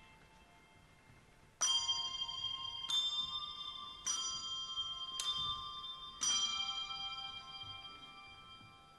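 Bell-like tuned percussion playing a slow melody: after a faint lingering ring, five struck notes about a second apart, each ringing on and fading slowly as the next one sounds.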